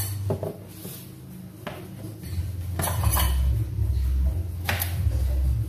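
Kitchenware being handled on a counter: a plastic bowl and utensils knocked and set down in several separate clinks and knocks, the loudest about three seconds in and near five seconds, over a low steady hum.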